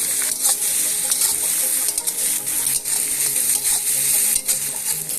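Fish fat frying with onion, tomato and spices in hot mustard oil in a kadai: a steady sizzle, with repeated scrapes and knocks as a spatula stirs the mixture.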